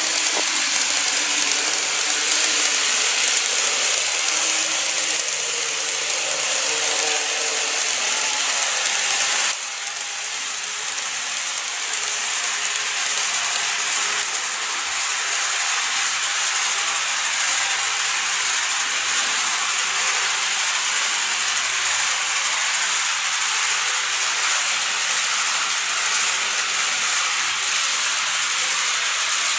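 A Seibu 9000 series model train running on its track: a steady, hissy mechanical running noise of motor and wheels with a fine rattle on the rails. The sound drops a little and changes about nine and a half seconds in.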